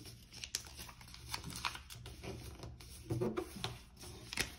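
A sheet of paper being folded and creased by hand on a table mat: scattered light taps, rustles and scrapes of fingertips and paper.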